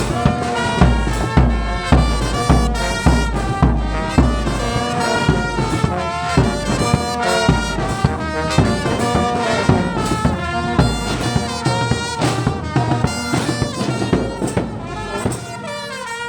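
A school brass band playing: trumpets and trombones carry the tune over a steady bass drum beat.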